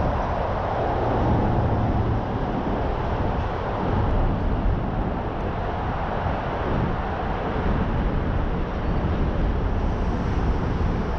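Heavy truck on the move: a steady rumble of engine and road noise.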